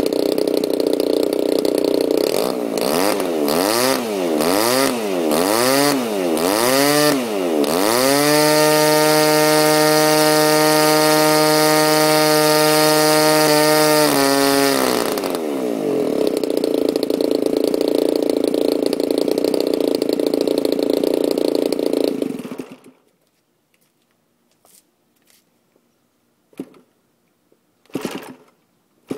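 DLE 20 single-cylinder two-stroke gas engine with a 16x6 propeller, revved up and down several times, then held at high revs for about six seconds, then dropped back to a steady lower speed. It cuts off suddenly about 22 seconds in. A few short sharp sounds follow near the end as the propeller is flipped by hand.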